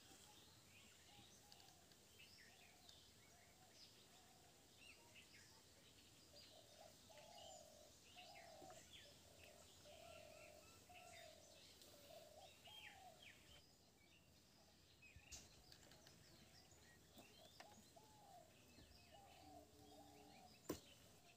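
Faint outdoor birdsong: many short, high chirps over a lower call repeated again and again. A single sharp click sounds near the end.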